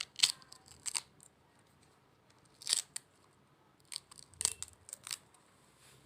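Snakefruit (salak) making a string of short, crisp cracking and tearing sounds, a few at a time with pauses of about a second between them.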